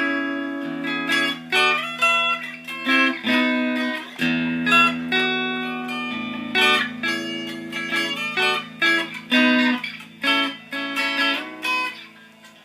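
Six-string cigar box guitar, its body an Aroma de Cuba cigar box, fingerpicked: a run of plucked melody notes over ringing bass notes, dying away near the end.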